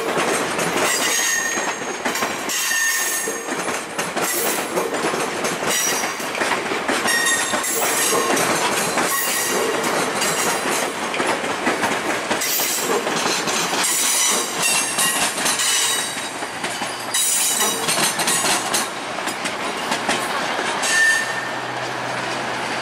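Stainless-steel Budd passenger cars of VIA Rail's Canadian rolling slowly past, their wheels giving short high-pitched squeals on the curving track and clacking over rail joints.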